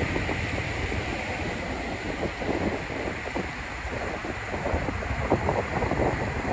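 Strong tropical-storm wind buffeting the microphone in irregular gusts, over a steady rushing of rain and water.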